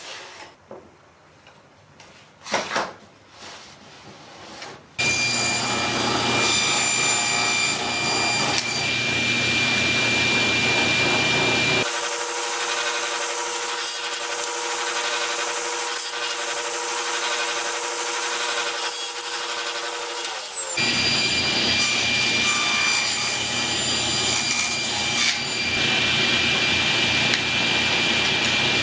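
A few knocks of wooden parts being handled, then about five seconds in a table saw starts and runs with a steady whine. Its sound changes for a stretch in the middle.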